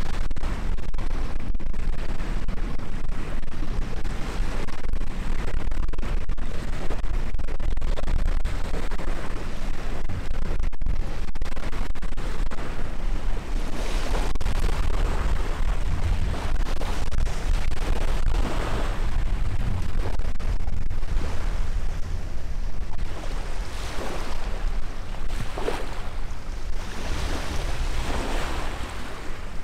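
Wind buffeting the microphone with a steady low rumble, and small waves washing onto the shore, breaking every two to three seconds from about halfway on.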